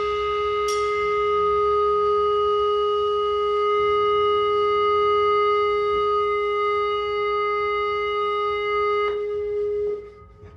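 Electric guitar sustaining one note at full level, re-struck once near the start and ringing without dying away. It is cut off abruptly a little past nine seconds in, with a last short tone stopping about a second later.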